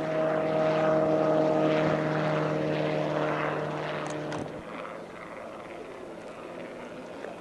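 Homemade helicopter's Subaru engine running with its rotor turning, a steady pitched tone that cuts off suddenly about four and a half seconds in, leaving fainter noise.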